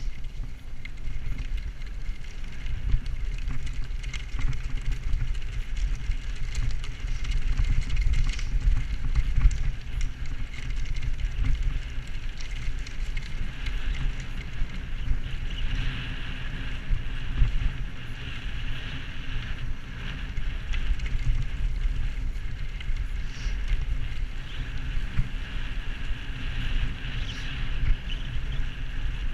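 Bicycle rolling over a leaf-strewn gravel rail bed: tyre crunch and scattered clicks and rattles under steady wind rumble on the microphone.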